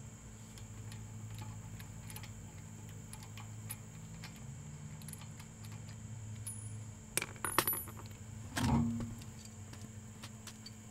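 Metal tools or parts clinking while a car's brake is being taken apart: a few sharp clinks about seven seconds in, then a louder clank with a brief ring just before nine seconds, over a steady low hum.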